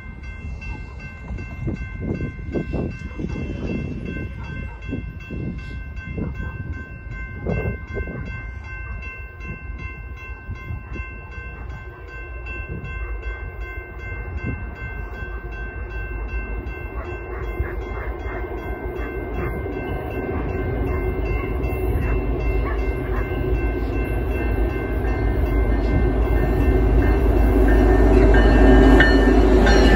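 Grade-crossing warning bell ringing steadily as a loaded coal train approaches behind EMD SD70ACE diesel locomotives. The locomotives' engine rumble and the rolling of the train grow steadily louder over the last ten seconds as the lead unit nears.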